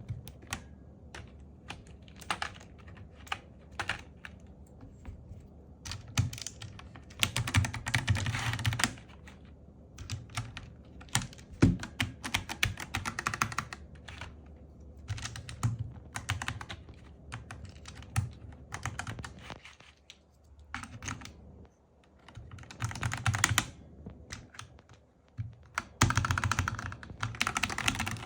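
Typing on a Zifriend KA646 mechanical keyboard: scattered single key clicks at first, then several quick runs of rapid keystrokes.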